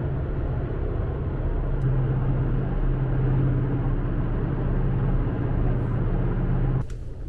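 Steady low drone of a passenger boat's engines, with a constant low hum under a rushing noise. It drops off suddenly near the end.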